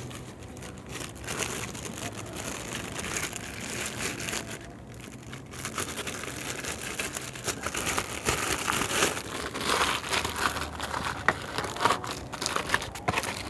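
Crinkling and rustling as tool-kit items and their wrapping are handled by hand, with scattered small clicks and knocks that grow more frequent in the second half.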